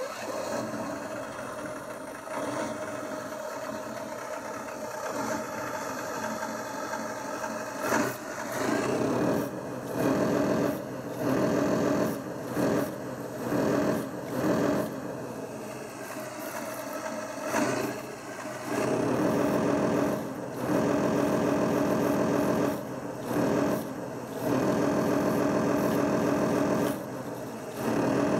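Simulated IS-3 battle tank V12 diesel engine sound from an ESP32 engine sound controller, played through two small speakers. It idles steadily at first, then from about eight seconds in revs up and drops back again and again as the transmitter throttle is worked, with longer revs near the end.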